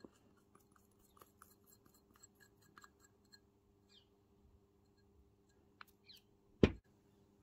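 Ground black pepper and salt tapped from a small glass dish into a glass mixing bowl: a scatter of faint, light ticks of grains and glass. One sharp knock stands out near the end.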